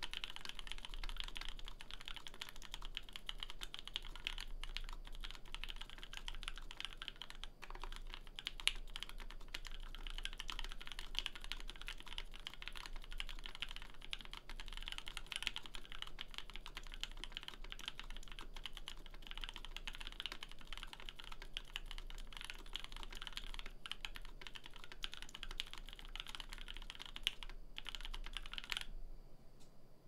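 Continuous fast typing on a Cannon Keys Savage65 mechanical keyboard with Gateron Black Ink linear switches, which the builder notes are overlubed, on an FR4 plate with GMK keycaps and no foam. The typing stops about a second before the end.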